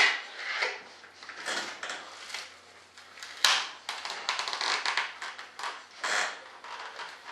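Hot-glued, waxed rudder mold being pried apart by hand: a run of irregular clicks, crackles and short scrapes as the pieces work loose, with one sharp snap about three and a half seconds in.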